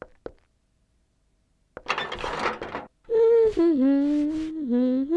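A short rustling noise about two seconds in, then a high voice moaning a long wavering 'ooo' in held notes that drop in pitch and step back up, carrying on past the end.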